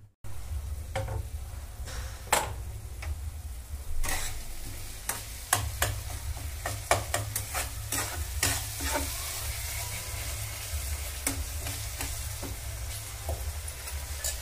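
Tomato-masala gravy sizzling as it fries in a kadai while a metal spatula stirs it, with irregular clicks and scrapes of the spatula against the pan over a low steady rumble.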